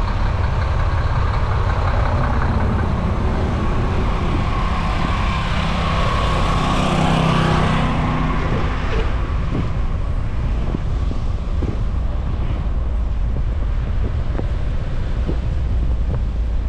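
Car driving slowly on a snow-covered street: a steady low rumble of engine and tyres rolling through snow. About halfway through, an engine hum and hiss swell louder, then fade.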